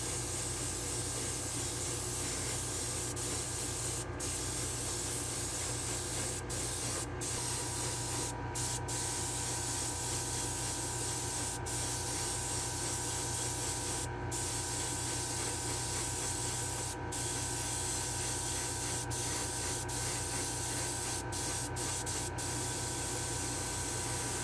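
Paint spraying onto a small diecast model body: a steady hiss over a low hum, breaking off for a moment several times.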